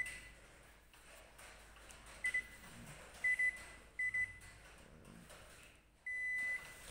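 Control-panel beeper of a Zojirushi pressure-IH rice cooker sounding as its buttons are pressed: short double and triple pips about two to four seconds in, then one longer beep near the end.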